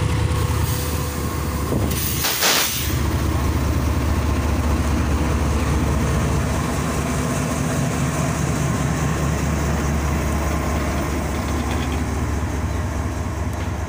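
GEU-40 diesel-electric locomotive's engine running as it pulls the train away, a steady low rumble, with a brief sharp hiss of air about two seconds in.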